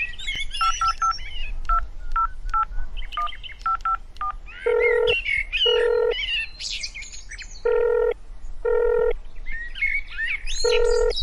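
Phone keypad tones as a number is dialled: a quick string of short beeps. From about four and a half seconds in comes the ringback tone of the call going through, double rings repeated with pauses. Birds chirp in the background.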